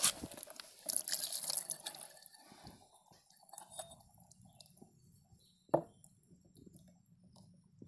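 Liquid splashing and dripping as a pleated engine oil filter element is pulled from its metal canister and rinsed in a shallow metal basin. There is one sharp knock about three-quarters of the way through.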